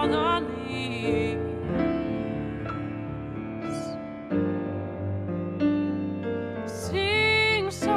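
Live acoustic performance of a slow, tender song: a female singer with instrumental accompaniment. Her voice fades out about two seconds in, leaving the accompaniment alone for several seconds, then comes back with a long held note near the end.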